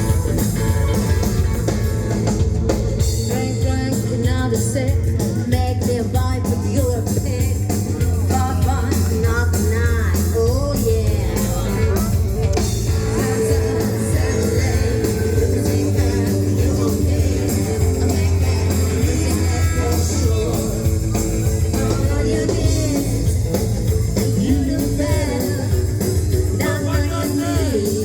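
Rockabilly band playing live: a singer over electric guitar, bass and drums, loud and continuous.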